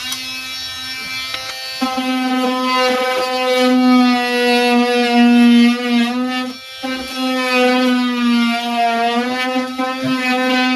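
Newly fitted fire alarm sounder going off in a test: a loud, continuous buzzy tone held at one pitch with slight wavers. It swells louder about two seconds in and briefly cuts out about two thirds of the way through.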